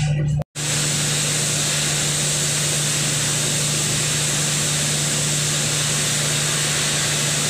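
Steady rushing of a ventilation fan with a low, even hum. The sound cuts out completely for an instant about half a second in.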